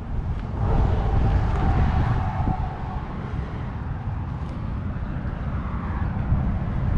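Steady low rumble of a motor vehicle, with a faint steady whine from about half a second to three seconds in.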